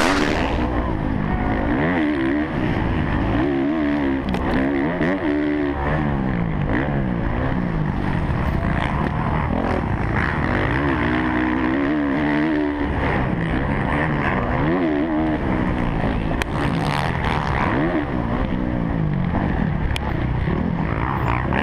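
Kawasaki KX450F four-stroke single-cylinder motocross engine, close up from a camera on the bike, revving up and falling back again and again as it is ridden hard around a dirt track.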